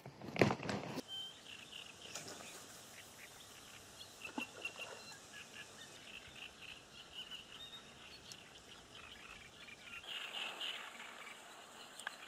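A short burst of close clicking and rustling about half a second in, from hands packing groundbait into a feeder, then birds chirping steadily for the rest of the time, with a louder spell of chirps near the end.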